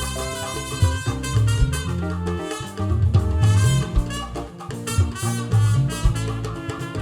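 Gospel worship band playing an instrumental passage, with a drum kit keeping a steady beat under a heavy bass line and sustained melody notes.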